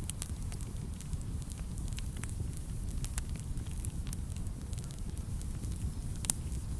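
Wood fire burning in a fireplace: a steady low rumble of flames with frequent small crackles and pops, one louder pop near the end.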